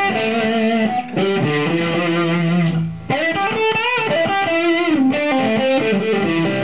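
Electric guitar on its single-coil middle pickup, played through a Danelectro Cool Cat Fuzz pedal with the gain at about halfway and a boost engaged. It plays sustained, fuzzy single-note lead lines with vibrato, with short breaks about a second in and near three seconds.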